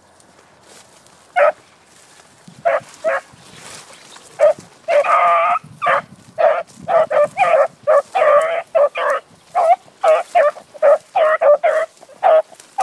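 A dog barking: a single bark about a second and a half in, then repeated barks coming faster, about two a second in the second half.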